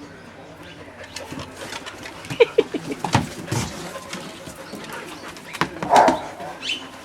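Dogs at play, a Border Collie puppy among them. There are a few short, high yips about two and a half seconds in, some scuffling knocks just after, and a louder yap or growl about six seconds in.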